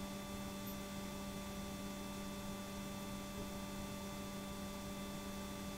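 Transformer-type soldering gun humming steadily with its trigger held, its tip melting solder onto a rectifier's metal mounting plate.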